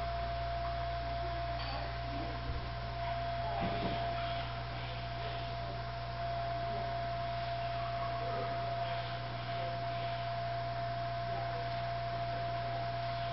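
Steady electrical hum: a low drone with a steady higher whine over it.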